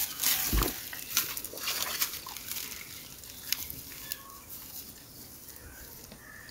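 Young cow tearing and chewing grass, with dry grass and straw rustling under its muzzle: a scatter of faint crisp crunches and clicks that thins out after the first couple of seconds.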